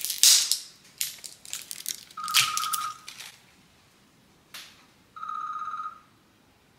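Plastic safety wrap tearing and crinkling as a sore throat spray bottle is unwrapped, loudest at the start, followed by rustles and sharp clicks. Twice a short steady buzzing tone sounds, about two seconds in and about five seconds in.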